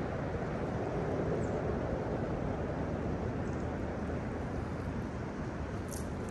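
Fast-flowing river water rushing steadily over a riffle, with a brief faint high click near the end.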